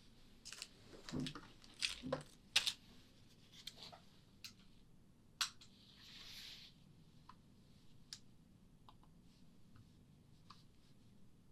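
Powder puff rubbed and dabbed against an ASMR microphone: scattered soft clicks and crackles, denser in the first half, with a brief soft swish about six seconds in.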